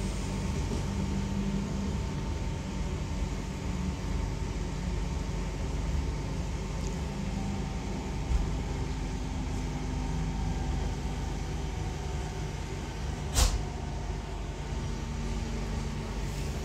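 Cabin running noise of a Class 323 electric multiple unit under way: a steady low rumble with a faint steady whine. There is a small click about eight seconds in and a single sharp knock about thirteen seconds in.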